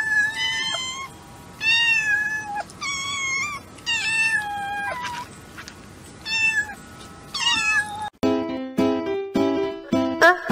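Kittens meowing: about six short, high-pitched meows, each bending in pitch. About eight seconds in they give way to background music of plucked notes.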